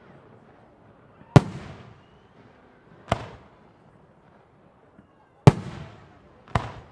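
Firework shells bursting in the air: four sharp bangs one to two seconds apart, each trailing off in a fading echo.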